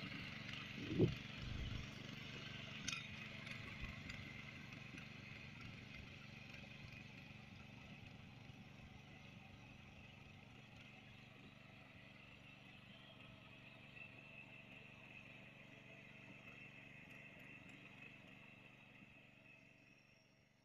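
Engine of a walk-behind power tiller running steadily as it churns a flooded paddy field, growing gradually fainter as it moves away. A brief louder bump comes about a second in.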